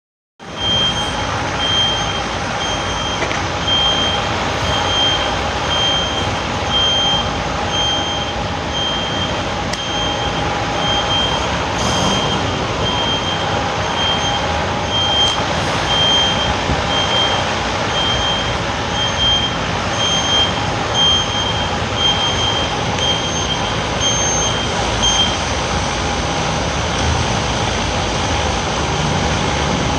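A vehicle's reversing alarm beeps evenly, about one and a half beeps a second, over the steady running of a diesel truck engine. The beeping stops about 25 seconds in.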